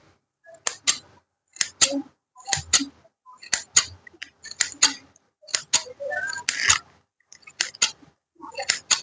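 Scissors snipping hair, crisp double snips about once a second, with one longer rasping cut about six seconds in.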